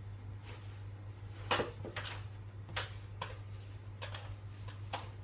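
Chicken pieces being turned and pressed into flour by hand in a plastic tub: irregular knocks and scrapes against the plastic, about seven in all, the loudest about one and a half seconds in, over a steady low hum.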